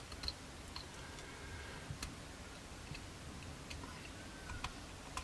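Scalpel blade shaving raised plastic from a plastic model kit's fuselage part, heard as a few faint, scattered ticks.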